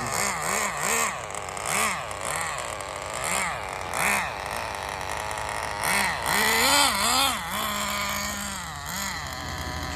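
HPI RS4 RC car's small two-stroke nitro glow engine revving up and down in quick repeated throttle blips as the car drives. About three-quarters of the way through it revs higher, holds a steady note for about a second, then goes back to short blips.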